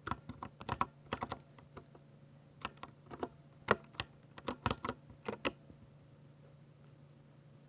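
Keystrokes on a Ducky 60% mechanical keyboard with silver switches, typed irregularly in short runs and single presses. The typing stops about five and a half seconds in, leaving a faint steady hum.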